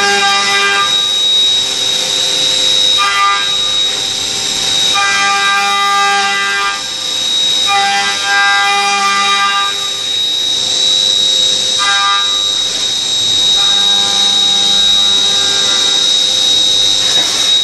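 Leadwell V-50L CNC vertical machining center milling. A steady high-pitched spindle whine runs throughout, and a pitched, multi-tone cutting whine comes and goes in stretches of a second or two as the cutter engages the workpiece.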